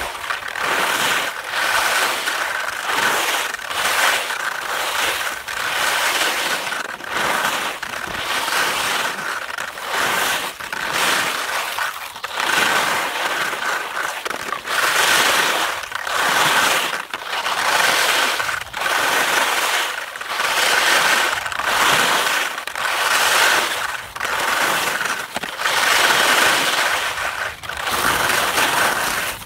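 Skis scraping and crunching over firm, dimpled spring snow in an even rhythm of about one stroke a second.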